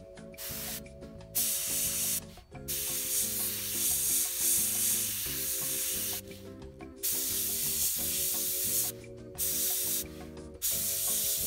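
Harder & Steenbeck Infinity airbrush spraying acrylic paint at a light 10 to 15 psi: a steady air hiss that starts and stops as the trigger is worked, in several bursts of one to four seconds with short pauses between them.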